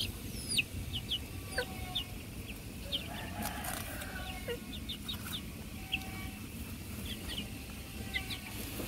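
Many short, high peeping calls, each falling quickly in pitch, repeated irregularly over a low steady background hum.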